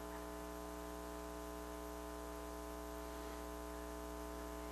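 Faint, steady electrical hum made of several held tones, with a layer of hiss over it.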